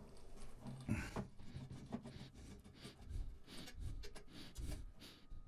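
Faint, irregular rubbing and scraping with small clicks as the metal tube and plastic inner tube of a coaxial collinear antenna are twisted and pulled by hand. The parts are stuck fast and not coming free.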